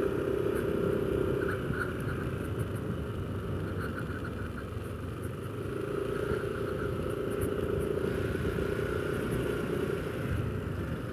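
Yamaha NMAX 155 scooter's single-cylinder engine running while riding, over a steady rushing road noise; its engine note fades after a second or two and comes back in the middle.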